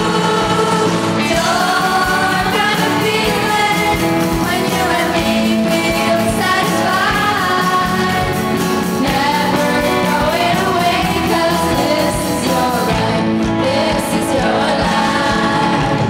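A teenage mixed-voice vocal ensemble singing together into microphones, amplified over the hall's speakers, with piano accompaniment.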